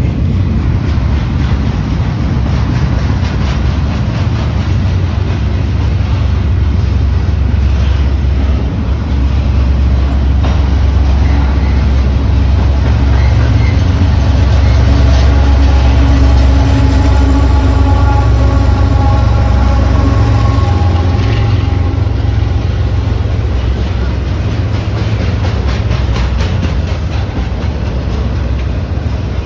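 Double-stack container freight train passing close by: a steady low rumble of wheels on rail. It is loudest about halfway through as a diesel locomotive goes past, its engine drone falling slightly in pitch.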